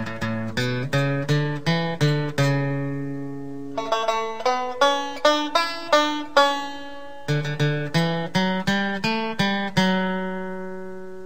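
Background music of plucked string instruments picking a quick melody, each note struck and fading, with a longer ringing note about a third of the way in and another near the end.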